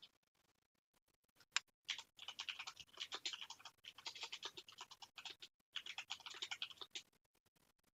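Faint rapid clicking of a computer keyboard being typed on. One sharper click comes about a second and a half in, then a steady run of typing for about five seconds that stops near the end.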